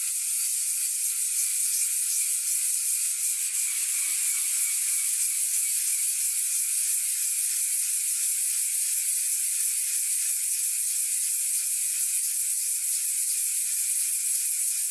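A model steam engine cylinder's port face being rubbed by hand on wet-and-dry abrasive paper, wetted with lubricant: a steady, high-pitched scraping hiss as the face is cleaned up flat.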